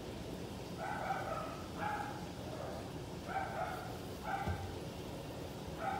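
A dog barking: five short barks at uneven intervals, with a soft thump near the middle.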